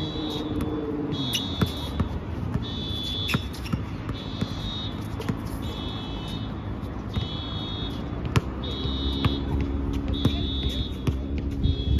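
Basketball bouncing on an outdoor hard court, with scattered sharp thumps of the ball on the court and a louder bang about eight seconds in. A high beep repeats about every second and a half underneath, and a low steady hum comes in near the end.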